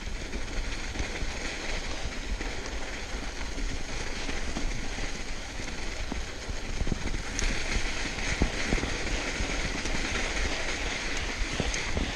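2014 Giant Trance Advanced SX mountain bike ridden fast on a dirt and sand trail: a steady rumble and hiss of the tyres rolling over the ground, with scattered knocks and rattles as the bike goes over bumps. The hiss grows louder about halfway through.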